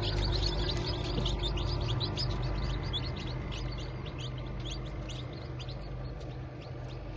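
Many chicks peeping at once, a dense stream of short high peeps that grows gradually quieter, over a steady low hum.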